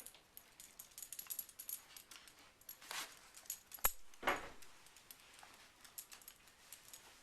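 A hiccup about four seconds in, just after a sharp click, over faint light jingling and ticking.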